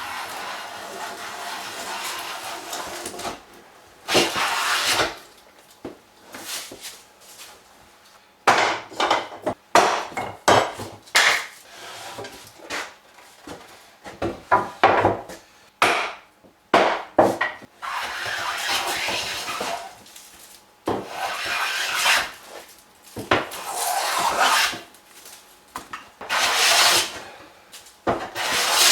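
Hand tools working wood: a series of scraping strokes. Some are long, up to about three seconds, and a run of short, quick strokes comes in the middle.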